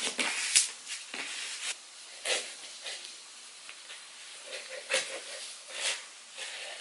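Cardboard box flaps and a cotton hoodie being handled as a parcel is unpacked: scattered rustles and soft knocks with a light hiss of fabric in between.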